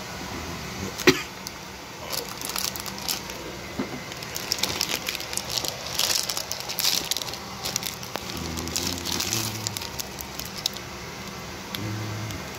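Plastic salad packaging being handled: a sharp snap about a second in, then several seconds of crinkling and crackling.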